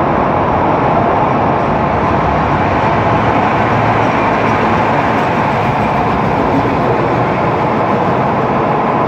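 A rubber-tyred Montréal Metro Azur train and a track maintenance vehicle running into the station, a steady loud rumble.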